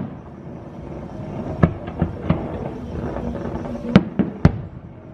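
Fireworks going off: a string of sharp bangs at uneven intervals, the loudest two near the end, over a steady background noise.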